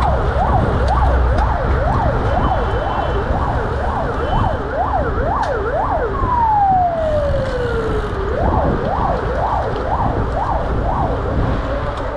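Vehicle siren yelping, its pitch sweeping up and down about twice a second. About halfway through it drops once in a long falling glide, then the fast yelp resumes, fading near the end. A low rumble runs underneath.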